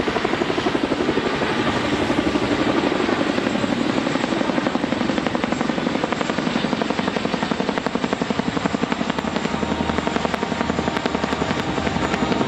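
Firefighting helicopters flying over, their rotors beating in a rapid, steady pulse.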